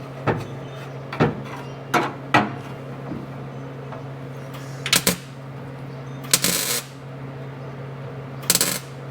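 Sharp metallic clicks and knocks from sheet-metal work on a truck cab's transmission tunnel panel. Near the end come two harsher half-second bursts. A steady low hum runs underneath.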